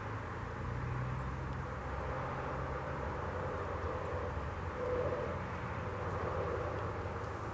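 Sterling Model M 8/8-port fire siren sounding its attack signal, a wavering tone that swells to its loudest about five seconds in, over a low rumble.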